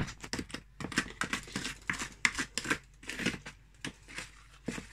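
A utensil scraping and clicking against a mixing bowl as biscuit dough is folded together, with several irregular knocks and scrapes a second.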